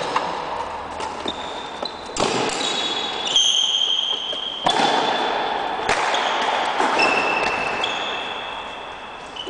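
A badminton rally: rackets striking the shuttlecock in sharp cracks, with shoes squeaking on the sports-hall floor in short, high squeals as the players move. Each hit echoes and fades slowly in the large hall.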